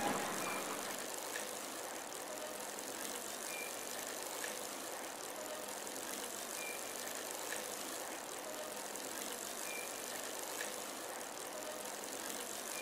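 Steady, quiet background hiss of ambient noise, with faint short peeps recurring about every three seconds.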